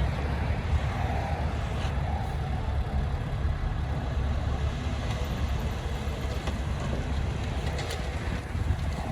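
Heavy earthmoving machine's diesel engine running steadily with a low rumble.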